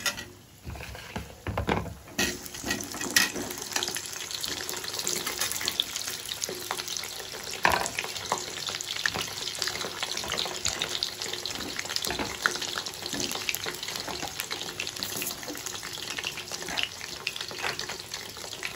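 Whole peeled potatoes sizzling as they deep-fry in hot oil in a kadai. The sizzle builds over the first couple of seconds as the potatoes go in, with a few knocks, then holds steady.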